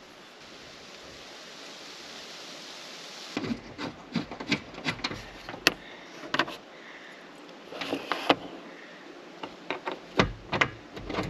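A soft, steady hiss for the first few seconds, then a run of scattered sharp clicks and knocks as solar panels and their mounting brackets are handled and set down on the camper roof.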